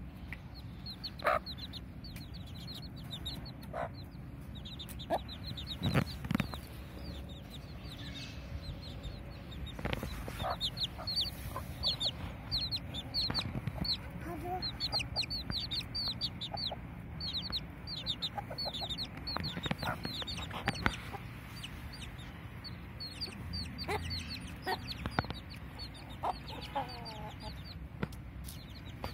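Chicks peeping continuously in short, high, falling notes, with an adult hen clucking low now and then. A few sharp knocks stand out above the peeping.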